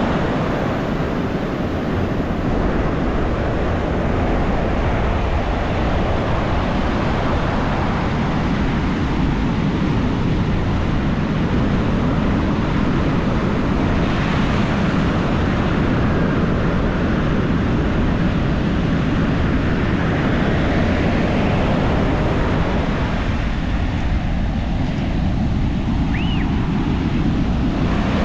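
Ocean surf breaking on a beach: a loud, steady rush and rumble of waves, with a short high chirp near the end.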